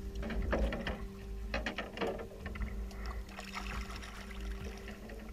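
Scattered light knocks and rustles as a canoe and gear are hauled out onto a grassy bank, over a low wind rumble on the microphone.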